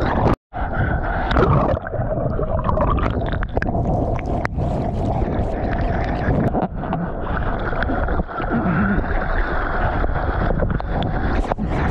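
Sea water churning and splashing close around a surfer's GoPro Hero9. Whitewater washes over the camera at the start, then hand-paddling strokes splash alongside the surfboard. The sound drops out for an instant just after the start.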